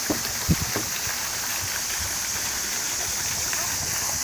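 Steady rushing of water, with a few soft low thumps in the first second.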